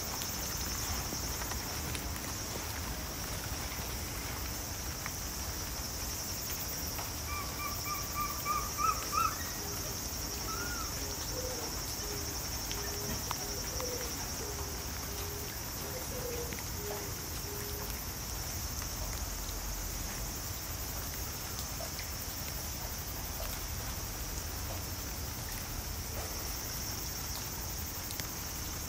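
Outdoor ambience: a steady high-pitched hiss with birds calling. About seven seconds in comes a quick run of rising notes, then a string of lower hooting notes over several seconds.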